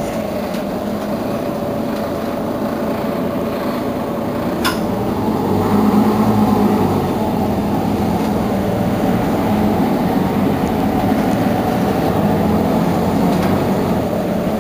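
Mercedes-Benz Citaro G C2 articulated bus idling while stationary, its engine running with a steady low hum. A single sharp click comes about a third of the way in, and the engine note swells briefly a little later.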